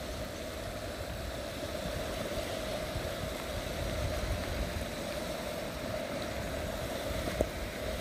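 Steady rush of a fast-flowing stream, with wind buffeting the microphone and a single click near the end.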